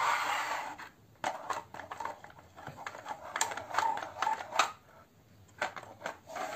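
Plastic toy excavator being handled and moved about on a hard floor: irregular plastic clicks and clacks.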